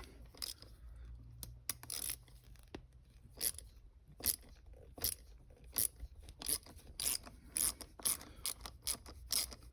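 Hand ratchet with a T40 Torx bit clicking in short irregular runs as it backs out a tight bolt, the clicks coming more often in the second half.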